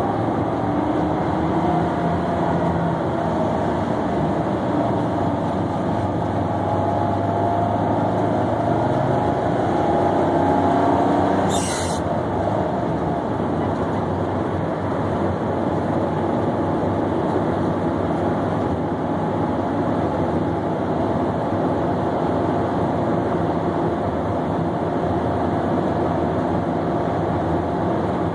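Cabin sound of a 1963 Chevrolet Corvair under way: the air-cooled, rear-mounted flat-six engine running together with road noise. The engine tone wavers and climbs for the first ten seconds or so; a sharp click comes about twelve seconds in, after which the sound is a little quieter and steadier.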